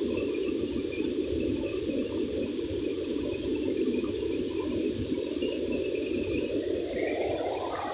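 Waterfall water rushing steadily, a dense low noise without breaks; just before the end the sound thins and changes.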